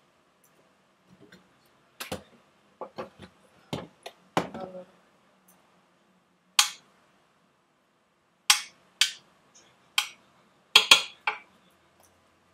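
Kitchenware being handled: a series of separate sharp clinks and knocks of glass containers, lids and utensils, scattered irregularly, with a quick cluster of the loudest ones about eleven seconds in.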